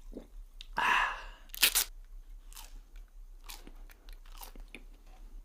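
Crunchy food being bitten and chewed: one loud crunch about a second in, a couple of sharp cracks just after, then a few softer crunches.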